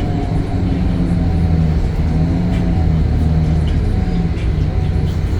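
Temsa Avenue LF 12 city bus running, its DAF Euro 5 diesel engine and ZF gearbox giving a steady low drone, with a fainter higher whine that bends gently in pitch in the first couple of seconds.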